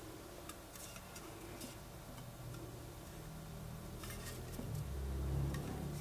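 Light clicks and taps of fingers handling an aluminium drinks can as it is turned in the hand, with a low hum growing louder near the end.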